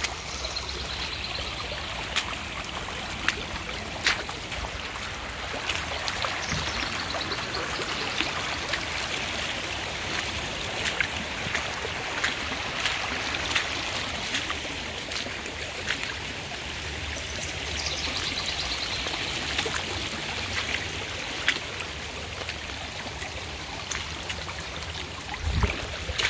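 Muddy floodwater rushing over the ground as a shallow, fast-running stream: a steady rush of running water, the sign of surface flooding pouring across a yard.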